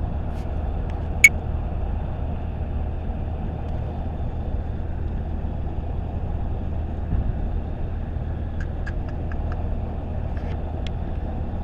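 Steady road and engine noise of a moving car heard from inside, a low even rumble, with a sharp click about a second in and a few light ticks near the end.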